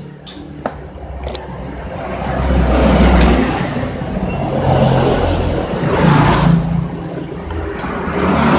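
Motor vehicles passing by, a rushing noise with a low rumble that swells and fades about three times. A few sharp clicks in the first second and a half as the TV's circuit board is handled.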